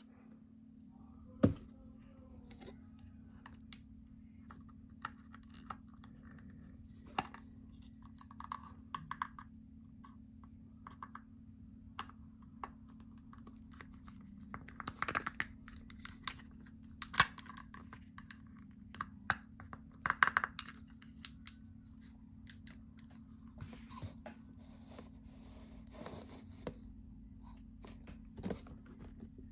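Plastic figure and packaging being handled: scattered clicks, taps and short rustles, the loudest a few sharp knocks, over a steady low hum.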